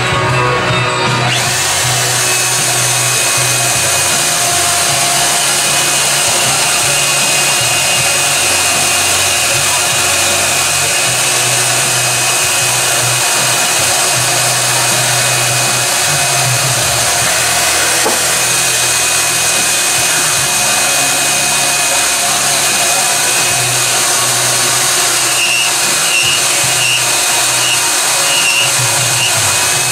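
A power tool running steadily with a loud, even hiss, starting about a second in.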